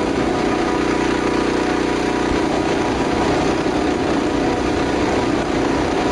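Recorded balloon sound effect played back: a loud, steady noise that holds even throughout, with no changes in pitch.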